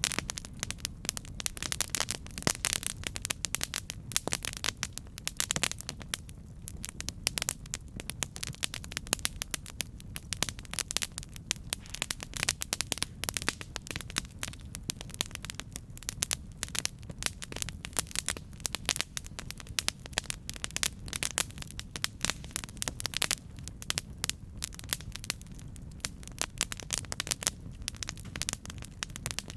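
Wood fire burning, with dense irregular crackling and popping over a low steady rumble of the flames.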